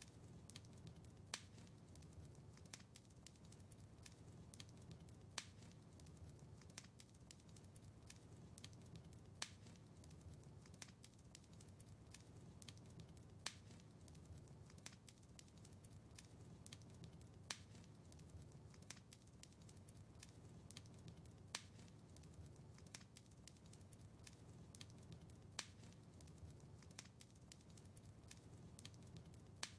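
Wood fire crackling faintly in a fireplace: a steady low rumble of flames with many small pops and ticks. A sharper pop recurs about every four seconds.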